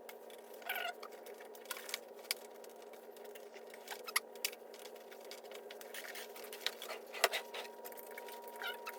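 Scattered light clicks and taps of small metal carburetor parts and hand tools being handled and fitted, over a faint steady hum.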